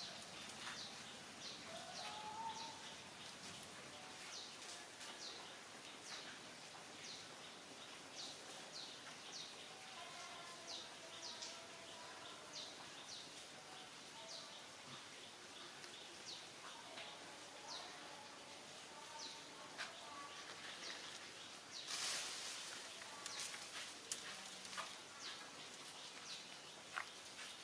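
Faint outdoor ambience with birds chirping: many short, high chirps repeating throughout, and a brief burst of noise about four-fifths of the way through.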